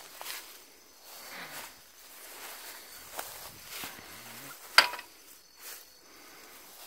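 Footsteps and rustling through tall grass and brush, in uneven strides. A single sharp click comes about five seconds in. Faint steady insect buzzing runs underneath.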